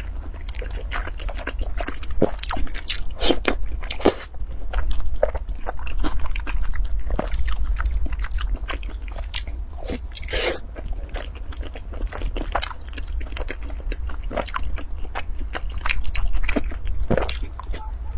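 Close-up eating sounds of soft, wet food taken from a broth: many short lip smacks and chewing clicks, with one longer, louder wet sound about ten seconds in. A steady low hum runs underneath.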